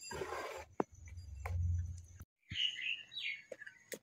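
Thick idli batter being stirred by hand in an aluminium pot, a brief wet squelch, then a low hum. After a short break, small birds chirp several times in quick, sweeping notes.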